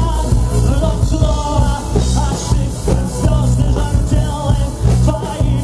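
Live rock band playing loud, with a male singer singing over heavy bass and drums.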